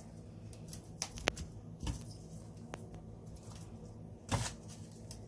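Sliced onion being laid by hand over fish in a pot: a handful of short rustles and light clicks, over a faint steady low hum.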